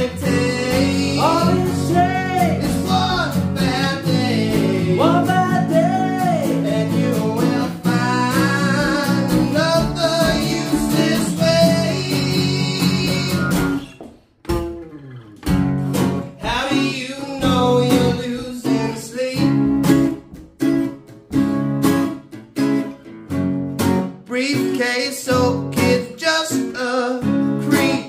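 Two acoustic guitars played live together, chords strummed under a picked melody line with bent, wavering notes. The playing drops out briefly about halfway, then resumes as choppy rhythmic strumming.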